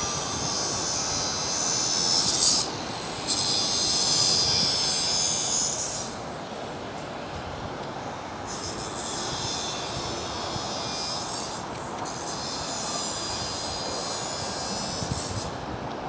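Train wheels screeching on the rails, a high-pitched screech that comes in four surges of about three seconds each, the first two the loudest, over a steady rumble of the moving train.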